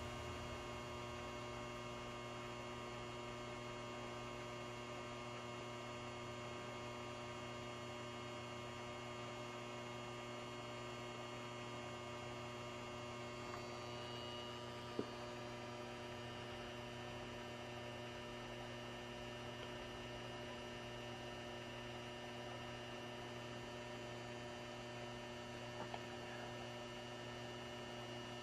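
A Cooper Lighting 400-watt high-pressure sodium flood light running lit, giving a steady electrical hum from its ballast. There is a faint click about halfway through and another near the end.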